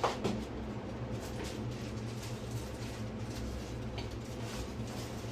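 A sharp knock and a second smaller one as the baking dish goes into the oven, then a steady low hum with a few faint clicks.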